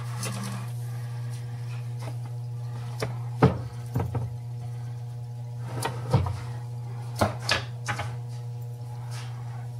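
A plastic measuring cup knocking and tapping against a stainless steel canister and a mixing bowl as sugar is scooped out and tipped in, a handful of short sharp knocks over a steady low hum.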